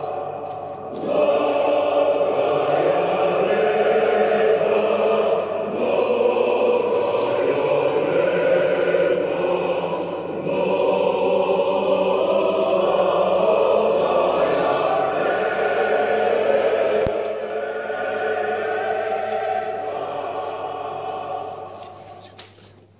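A choir singing in long sustained phrases, fading out near the end.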